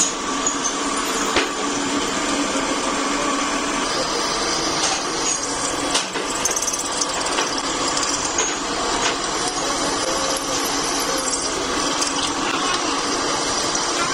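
Pillar drill press boring a twist drill into a steel truck kingpin under a trickle of coolant: steady machine-and-cutting noise with scattered short clicks of chips breaking.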